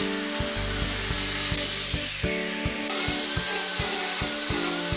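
Handheld electric sander running against a wooden stair newel post, a steady rasping hiss whose motor whine wavers with the pressure. Background music with a steady beat plays under it.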